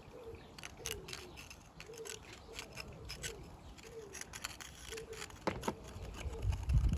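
Light clicks and taps of broken ceramic pot pieces being handled and fitted together, with a heavier knock near the end. Faint short hoot-like notes repeat in the background.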